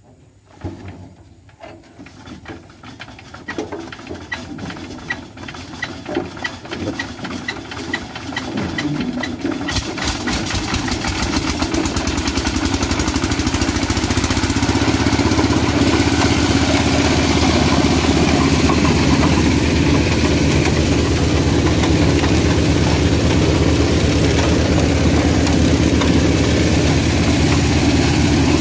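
Small stationary engine of a coconut-husk shredder being hand-cranked and started. Uneven chugs begin about a second in and quicken as it catches. By about ten seconds it is running steadily and louder, driving the shredder through its belt.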